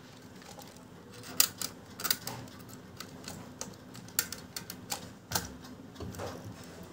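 Irregular light clicks and knocks of a plastic toy RC monster truck being handled, its body and suspension pressed and turned in the hands.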